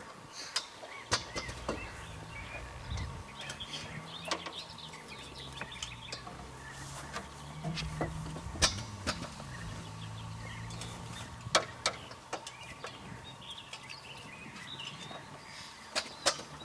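Scattered sharp clicks and knocks as the biplane's propeller and engine are pulled through by hand before starting, with birds chirping in the background and a low steady hum.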